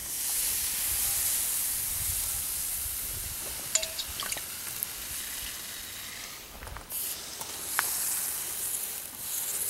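Steady hiss and sizzle from the fire in a homemade ammo can stove, on its first burn to cook off the paint, with a few faint crackles. The hiss drops out briefly about two-thirds of the way through, then returns.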